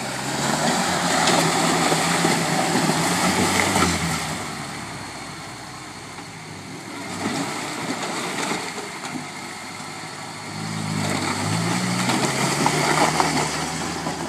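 A Land Rover Series 4x4's engine working under load off-road, with its tyres churning through mud and slush; the engine note rises twice, once right at the start and again about ten seconds in, easing off in between.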